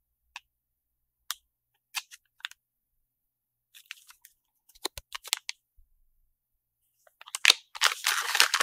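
A few small taps and clicks of packaged parts being handled, then from about seven and a half seconds in a clear plastic bag crinkling as it is handled.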